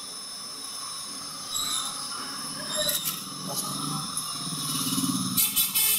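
Hot air rework gun blowing steadily onto a laptop motherboard to desolder a shorted capacitor: a steady rushing hiss with high whining tones. Near the end a rapid, pulsing high sound starts.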